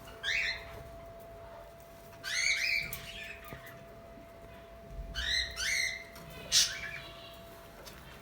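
Budgerigars calling: short chirping squawks in about four bursts, the last a single sharp call, over a faint steady hum.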